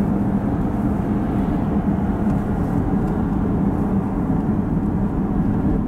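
Steady engine and road noise inside the cabin of a Hyundai Grandeur TG with its 3.3-litre V6 Lambda engine, cruising on a road.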